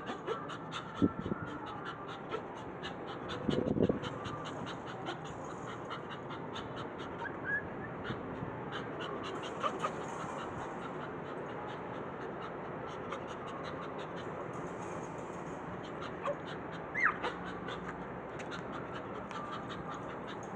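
Small Pomeranian dog panting rapidly and evenly, with a couple of short high whimpers.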